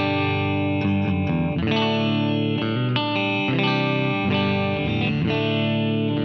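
Electric guitar with Seymour Duncan P-Rails strumming ringing chords through an amp, changing chord about once a second. The pickups are in the middle position: the bridge P-Rail in single-coil mode blended with the neck P-Rail's single-coil and P90 coils in parallel, three coils sounding at once.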